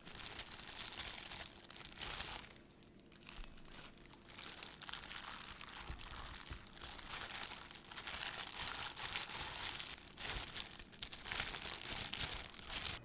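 Crinkling and rustling of wrapping being handled, in long stretches with brief pauses.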